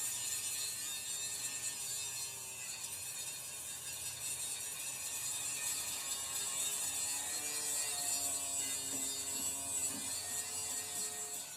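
Steady mechanical running noise with a strong hiss, and faint whining tones that come in about halfway through.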